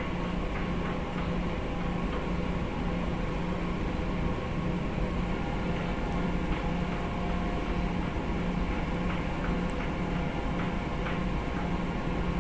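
Steady low rumble of a cargo ship's engine and machinery under way, with a hum that pulses in an even rhythm and a few faint ticks.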